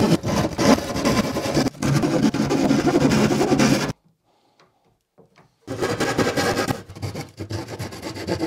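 Small hand saw cutting through the last uncut material at the corners of a cutout in a laminate-faced board, in quick rasping back-and-forth strokes. The sawing breaks off for about a second and a half some four seconds in, then starts again.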